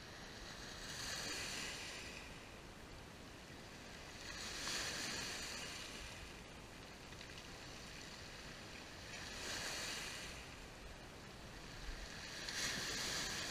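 Small Black Sea waves breaking and washing up a pebble beach, each one a swelling hiss that fades away, four times.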